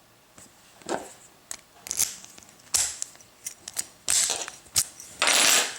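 Handling of a padlock and lock-picking tools: a series of small sharp metal clicks and knocks, with two short scraping, rubbing bursts near the end.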